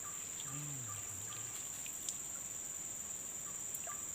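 Insects droning steadily in a high, even tone, with a short call repeating about twice a second that pauses midway and returns near the end.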